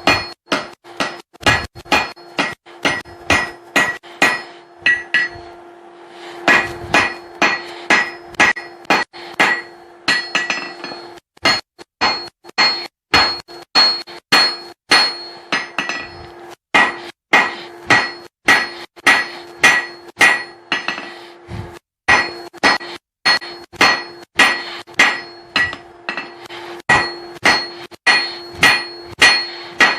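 Hand hammer striking a hot steel punch blank on an anvil in steady blows, about two to three a second, with the anvil ringing between strikes. There is a short break about six seconds in before the hammering resumes.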